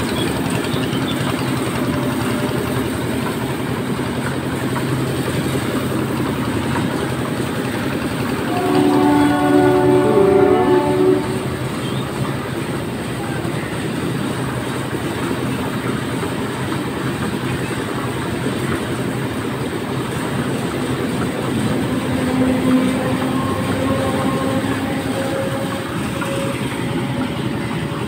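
Passenger train running past along a station platform, a steady rumble of coaches and wheels on the rails. About eight and a half seconds in, the train horn sounds a chord of several tones for about two and a half seconds.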